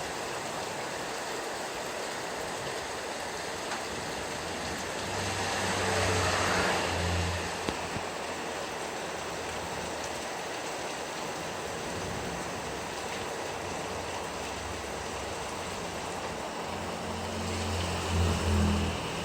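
Steady heavy rain falling, with a vehicle passing twice, about five seconds in and again near the end, its engine humming and its tyres swishing on the wet road.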